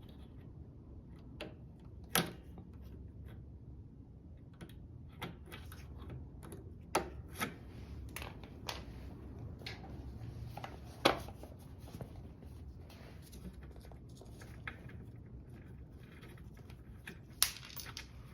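Scattered sharp metallic clicks and clinks of small parts being handled as a retaining clip and washers are worked off a lawnmower's rear axle, over a low steady hum.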